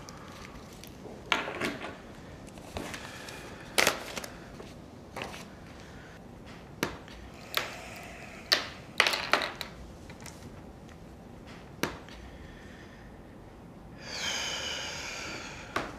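Scattered taps and clicks at a table with a laptop on it, a dozen or so with pauses between, some ringing briefly. Near the end a brighter sound with several held tones swells up and fades over about a second and a half.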